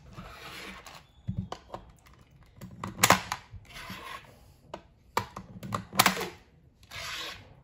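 Loose coins clicking against the tabletop and clattering into a plastic jar of change: a run of sharp clinks broken by several short rattles.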